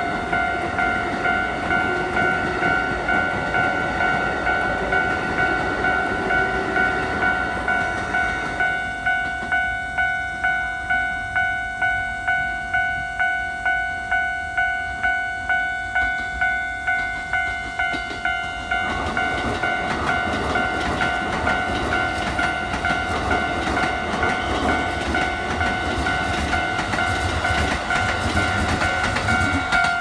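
Japanese level-crossing warning bell ringing steadily at about two dings a second. Under it, Keikyū 1000-series electric trains clatter over the rail joints: the first train's rumble fades about a third of the way in, and a second train comes rumbling through from a little past halfway.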